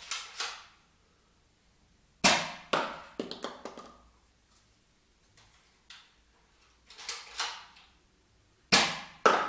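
Nerf Zombie Strike Sidestrike dart blaster fired twice, a sharp snap each time, with quicker knocks of the foam dart hitting and bouncing after it. Fainter double clicks come a second or two before each shot, typical of the blaster being primed. All of it echoes down a hard-walled hallway.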